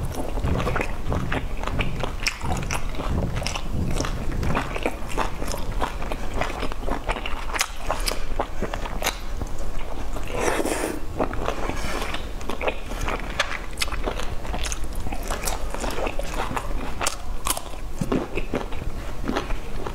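Close-miked eating: biting into and chewing soft boiled dumplings dipped in chili sauce, with many small mouth clicks and a louder burst about halfway through.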